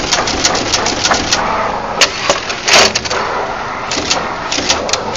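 Automatic jumper-wire (axial) insertion machine cycling, with a rapid run of sharp mechanical clicks about four a second as it inserts jumper wires into a PCB. Midway the clicking pauses for about two seconds, broken by one clack and a short, louder rattle. It resumes near the end.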